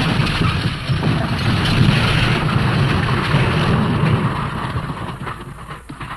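A dense rumbling, hissing sound effect that cuts in suddenly and fades out over its last couple of seconds.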